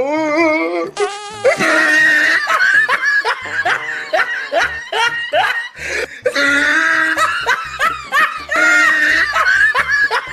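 People laughing hard in a run of short rising bursts and giggles, with music underneath.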